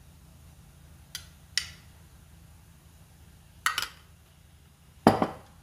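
A metal spoon clinking and knocking against a glass measuring jug and the steamer pot a handful of times while coconut cream is spooned onto the rice, the loudest knock near the end. A faint steady hum lies underneath.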